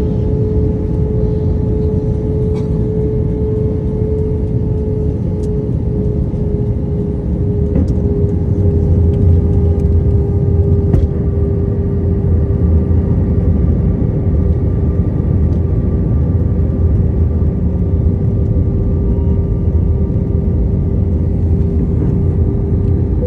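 Airplane engine noise: a steady, loud low rumble with a constant hum over it and no change in pitch.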